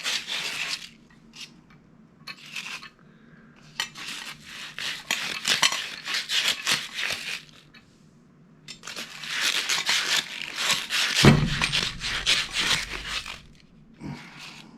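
Scraping and rubbing on brass and copper plumbing fittings in several bursts of quick scratchy strokes, with light metallic clinks and a dull thump about 11 seconds in.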